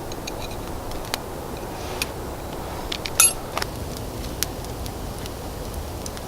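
Metal cooking utensils and cookware clinking with a few sharp clicks, a loud cluster a little past three seconds in, over a steady hiss.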